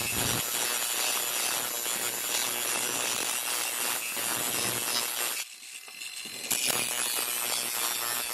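Cordless angle grinder with a cut-off wheel cutting through a metal pipe, sparks flying. The cutting noise is steady, dips for about a second past the middle, then resumes.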